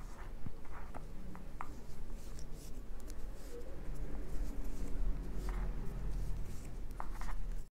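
Wooden knitting needles clicking faintly now and then, with soft yarn rustling, as stitches are knitted by hand.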